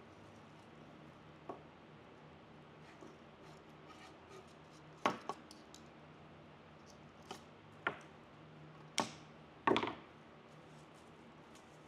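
Hands cutting and handling evergreen sprigs and floral wire with scissors: a scattered series of short, sharp snips and clicks, the two loudest near the end, over a faint steady hum.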